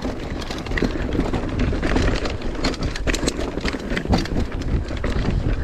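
Mountain bike descending a dirt trail: a steady rumble of tyres and wind on the microphone, with many quick knocks and rattles from the bike as it goes over the rough ground.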